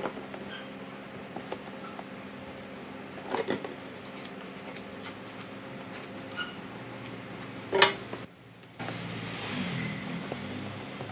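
A steady low mechanical hum, with a few light clicks and knocks as plastic drinking straws and a hot glue gun are handled; the sharpest knock comes about eight seconds in.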